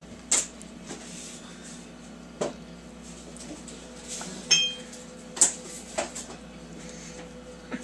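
About five short, sharp clinks and taps of small hard objects, spread a second or two apart, one with a brief ringing tone about halfway through, over a steady low hum.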